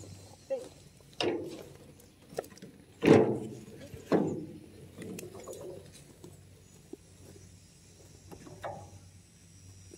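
Knocks and clanks of an empty wheelbarrow being pushed over bumpy lawn, its tray rattling. About seven separate hits, each with a short low ring, the loudest about three seconds in.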